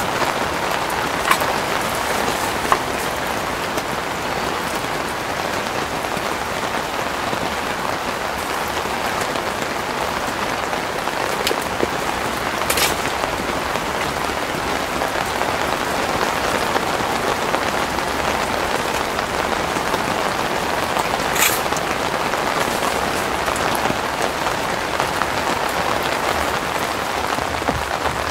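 Steady rain falling, with a few isolated sharp clicks.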